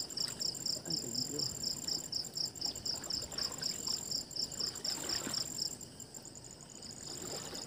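Insects chirping in a steady, high pulsing rhythm, about four to five chirps a second, breaking off briefly near the end and then starting again.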